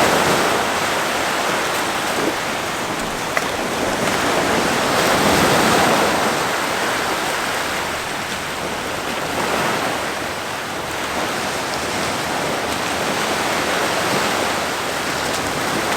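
Ocean surf washing onto the beach, a steady rush of water that swells and eases every few seconds.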